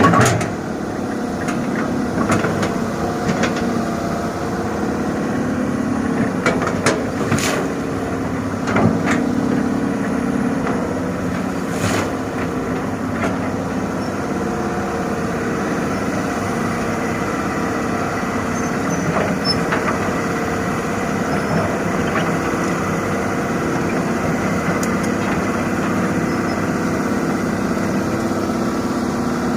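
Heavy diesel machinery engine running steadily, with a few sharp knocks in the first half.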